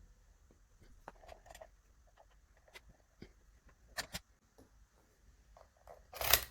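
Key being worked in an ASSA 600 pin-tumbler lock: faint scattered metallic clicks, two sharp clicks about four seconds in, and a brief louder scrape near the end.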